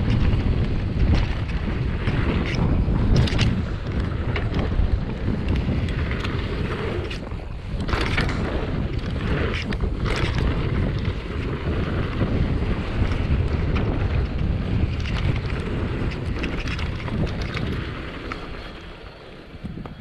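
Wind buffeting a chest-mounted action camera's microphone while a mountain bike rolls fast down a dirt trail, with steady tyre and trail rumble and frequent sharp knocks and rattles from the bike over bumps. The noise drops away near the end.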